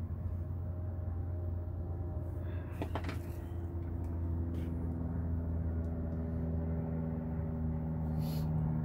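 A steady low mechanical hum, like an idling engine, with a single light click about three seconds in.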